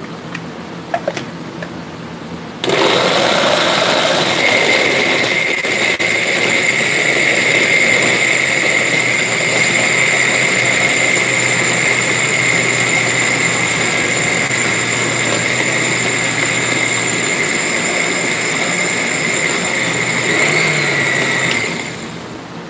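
Countertop blender switching on a few seconds in and running steadily with a high whine, crushing ice and peaches into a smooth slush, then winding down near the end. A couple of light clicks come just before it starts.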